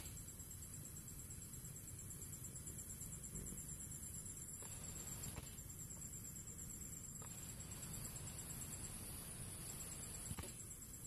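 Faint outdoor ambience: a steady, high, fast-pulsing insect trill over a low rumble, with a few faint clicks.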